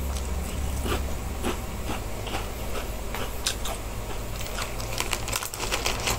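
Someone biting into and chewing a crispy onion-flavoured Mikako snack, with irregular crunches.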